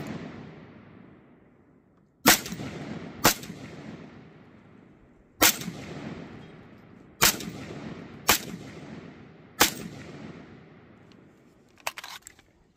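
Six rifle shots from a 7.62x39 rifle, fired at uneven intervals, each followed by a long echoing tail. A few faint clicks come near the end.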